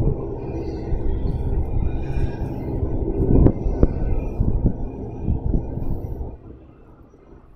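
Gusty wind buffeting the microphone, a heavy uneven rumble with a few knocks, dying away suddenly near the end.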